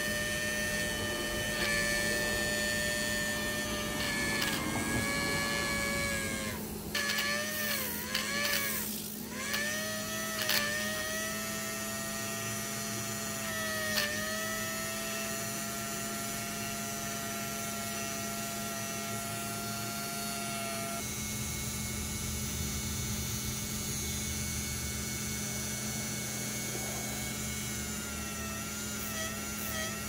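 Slot car tire truer's electric motor spinning the front wheels, a steady whine with the rubber tires sanding against abrasive paper. The whine dips in pitch several times in the first half, the motor slowing as the tires bear on the grit.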